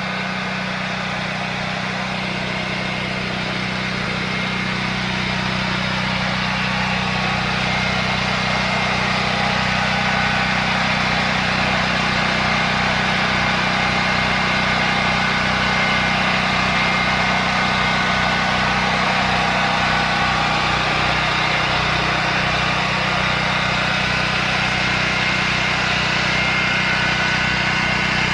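A Harbor Freight portable generator with a tri-fuel conversion, running steadily on natural gas fed by hose from the house's gas line. The engine's steady drone gets a little louder partway through.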